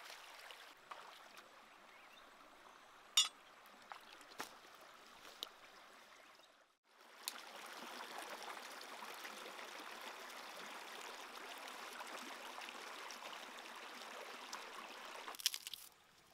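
Shallow stream running over rocks: a soft, steady rush of water with a few sharp clicks in the first six seconds. After a brief break about seven seconds in, the rush is louder and steady until it drops off sharply near the end.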